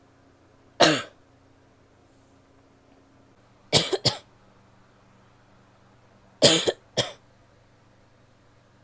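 A woman coughing in three short bouts: a single cough, then two quick double coughs.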